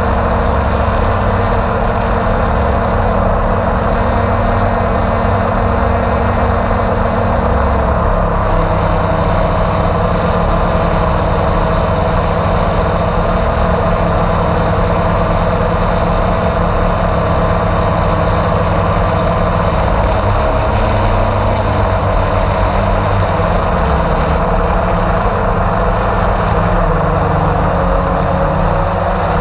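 Quadcopter drone's electric motors and propellers humming steadily, heard close up through the drone's own onboard camera, with a slight shift in pitch about eight seconds in.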